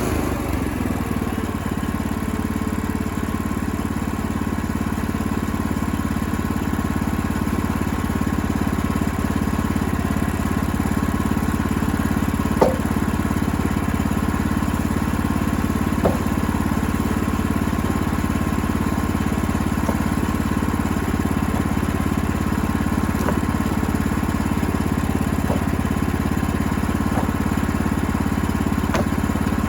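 Woodland Mills portable sawmill's engine running steadily, with two sharp clicks about halfway through.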